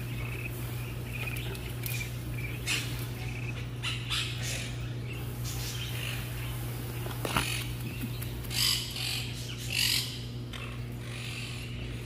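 Pet parrots chirping and calling, with a few louder calls near the end, over a steady low hum.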